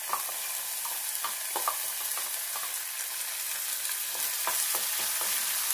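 Wet ground-coconut paste sizzling as it goes into hot coconut oil in a pan on a low flame: a steady hiss with a few light clicks.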